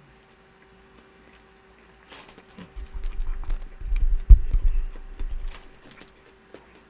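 Speed-eating a sandwich: clicks, chewing and handling noises with a run of heavy low thuds, densest from about two to five seconds in, over a faint steady hum.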